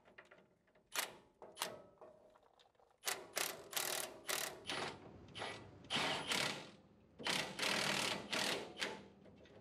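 Cordless impact wrench on a long extension run in a series of short bursts, then a longer run near the end, lightly snugging the lower control arm pivot bolts just enough to hold the arm in place. A couple of faint clicks come first.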